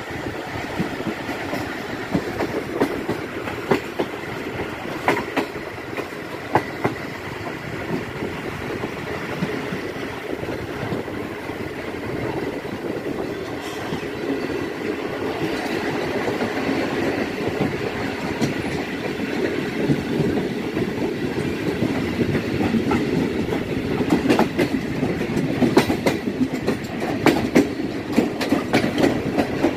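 Passenger train running along the track, its wheels clattering over rail joints with a steady rumble and frequent sharp clicks. The clatter grows louder and busier in the last few seconds.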